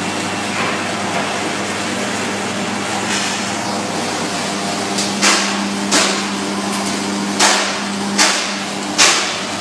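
Small peanut roasting machine running with a steady hum and rushing noise. About halfway through come five sharp knocks, irregularly spaced, the last the loudest.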